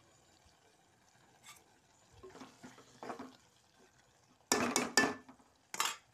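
A spoon stirring thick okra curry in an aluminium pot. Soft scrapes and knocks come about two seconds in, then a quick run of loud clanks against the pot about four and a half seconds in, and one more near the end.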